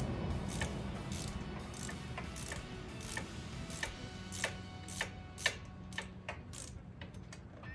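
Ratchet wrench clicking, a run of single sharp metallic clicks about two a second, each ringing briefly, as a dirt bike's oil drain plug is tightened back in.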